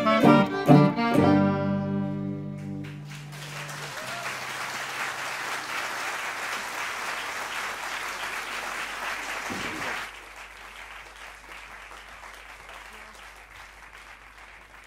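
A small hot-jazz band of violin, clarinet, banjo, guitar and tuba plays its last short notes and holds a final chord, the tuba's low note ringing on longest. The audience then applauds for several seconds; the applause drops off sharply about ten seconds in and fades away.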